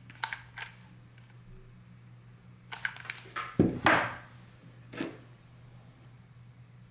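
Hot-glue-gun trigger clicking as gold sealing wax is pushed out onto a ceramic plate. The gun is then set down with a louder clatter, and about five seconds in the brass seal stamp gives a short metallic clink as it is picked up.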